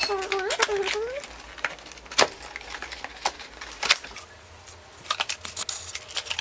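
Hands handling albums and photocards on a table: scattered sharp clicks and taps, the loudest about two seconds in and again near four seconds. A short stretch of voice comes in the first second.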